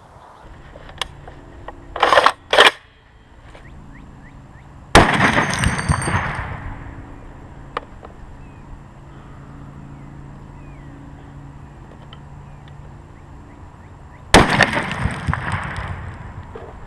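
Two high-powered rifle shots fired across an open pasture, about nine seconds apart. Each is a sharp crack that trails off in a rolling echo over a second or two. Earlier, about two seconds in, come two brief loud rushes of noise.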